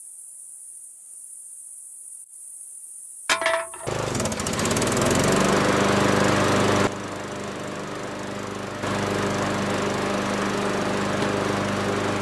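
Riding lawn tractor's small engine running steadily, coming in suddenly about four seconds in, just after a sharp click; before it only a faint high hiss. Its loudness steps down and back up twice.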